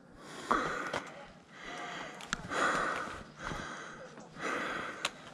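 A person breathing hard close to the microphone, a heavy breath about once a second, with two sharp clicks.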